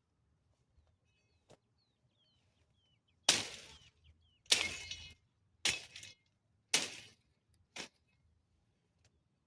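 Five sharp strikes at an even pace of about one a second, each with a short ringing decay, the last one weaker; faint bird chirps before them.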